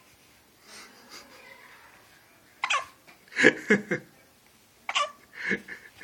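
A newborn baby's hiccups: two short, sharp hics about two and a half seconds apart, each followed by a brief burst of laughter.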